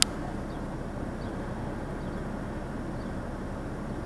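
Steady low rumble of a car idling while stopped, heard inside the car's cabin, with one sharp click right at the start and a few faint high chirps.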